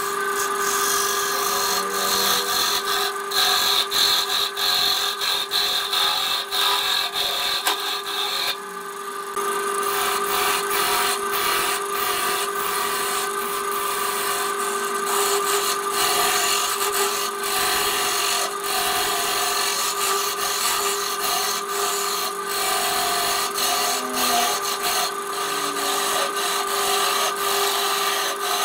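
Electric wood lathe running with a steady tone while a gouge cuts into the spinning wooden bowl blank, a continuous rough hiss and scrape as shavings peel off. The cutting drops off briefly about nine seconds in, then resumes.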